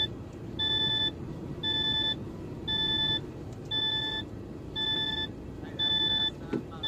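Warning beeper in a DAF truck cab beeping steadily about once a second, each beep half a second long at one pitch, over a low steady rumble.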